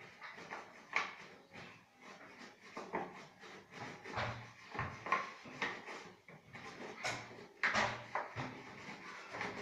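Irregular knocks and clatter of plastic containers being handled: a cup against a large plastic water bottle, with the loudest knocks near the end as the big bottle is lifted.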